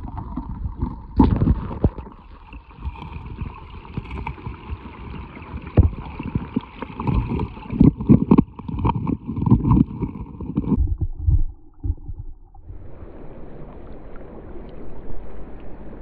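Creek water sloshing and splashing around hands holding a landed brown trout in the current for release, with irregular low thumps of handling on the microphone. Near the end the handling stops and only the steady rush of the stream remains.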